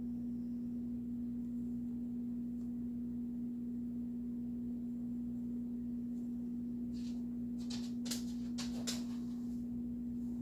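Steady low electrical hum on a single tone. About seven to nine seconds in come a handful of small clicks and scrapes, as the paintbrush works in a small metal dish of paint.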